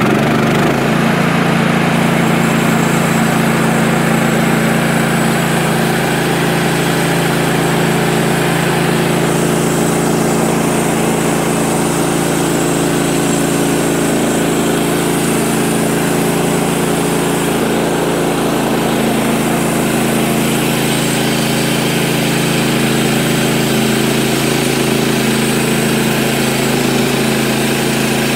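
Woodland Mills HM130 Max bandsaw mill's gas engine throttling up sharply right at the start, then running steadily at full speed as the band blade is pushed through a small log.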